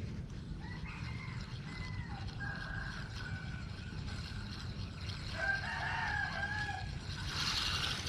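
A rooster crowing twice, each a long drawn-out call, the second about five seconds in and a little louder, over a steady low rumble.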